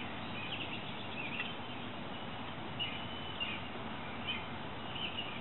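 Quiet open-air ambience with small birds giving short, high chirps every second or so.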